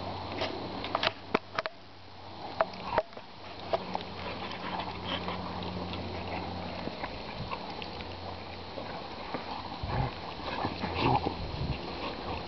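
Great Danes play-wrestling, with huffing, snuffling breaths and scuffling. A few sharp clicks come about one to three seconds in, and louder snorting bursts come near the end. A steady low hum sounds underneath from about four seconds in to about eleven.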